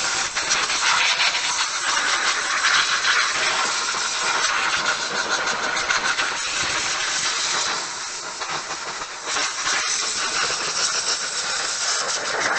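Compressed-air blow gun on a workshop airline hissing steadily as it blows dust off a motorcycle. The hiss dips briefly about two-thirds of the way through, then picks up again.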